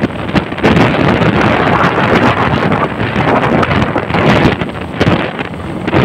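Wind buffeting the microphone of a moving vehicle: a loud, rough, steady rush with gusty swells, vehicle noise beneath.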